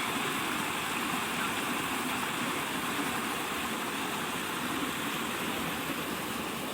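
Small tiered waterfall, its water rushing and splashing in a steady, even wash of noise.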